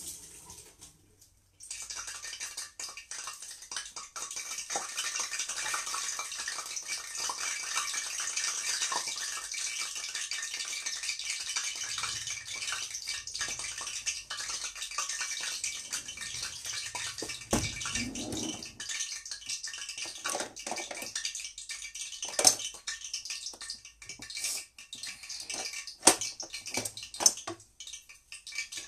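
Hot oil sizzling and crackling in a frying pan, starting suddenly about two seconds in. A few sharp knocks of a utensil come near the end.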